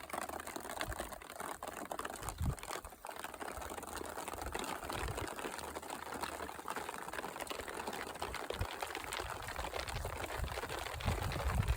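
Rain of large drops falling, a dense patter of drop hits. A low rumble builds near the end.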